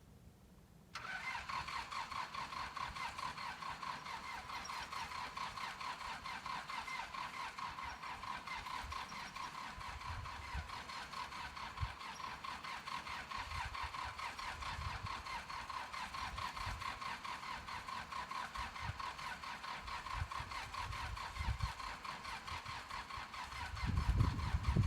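Small air compressor or tire inflator switching on about a second in and then running steadily with a fast, even buzz, pumping up a low front tractor tire. Low thumps now and then, more of them near the end.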